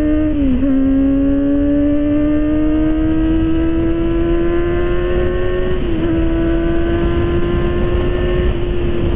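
Kawasaki ZX-25R's 250 cc inline-four engine, through an Arrow exhaust, pulling at high revs under way with its pitch slowly climbing. It dips briefly at gear changes about half a second in and again about six seconds in, over a steady rush of wind.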